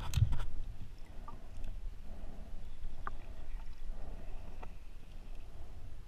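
Muffled underwater rumble of water moving around a submerged camera. A few sharp knocks come in the first half-second and faint ticks follow, from handling a speared fish on the spear shaft.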